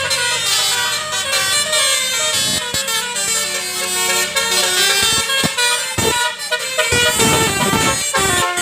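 Custom Basuri-style telolet horn on a car, a multi-tone musical horn playing a tune of changing chord-like notes, with a few short breaks between phrases.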